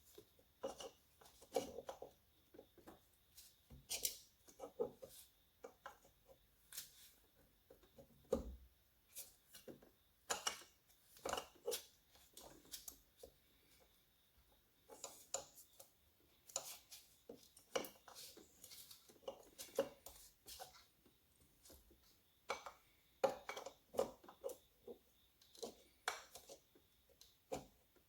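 Irregular light metallic clinks, taps and knocks as two-stroke engine parts (piston, rings and cylinder) are handled and fitted together by hand during a top-end rebuild.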